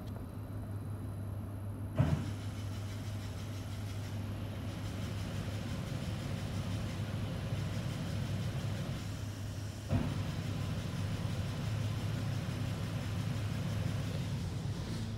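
Mark VII AquaJet GT-500 rollover car wash spraying water over a car, heard from inside the car: a steady hiss of spray over a constant low hum. A sharp knock about two seconds in, as the spray picks up, and another about ten seconds in.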